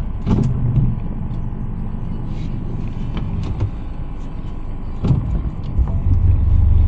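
Boat motor running at low speed, then throttling up and running louder and heavier about six seconds in, with a couple of knocks before that.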